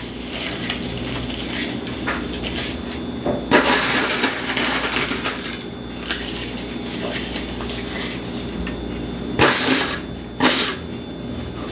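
Cooked bacon being crumbled by a gloved hand into a pot of cheese sauce and folded in: a continuous crackly rustling, with louder bursts of handling about three and a half and nine and a half seconds in.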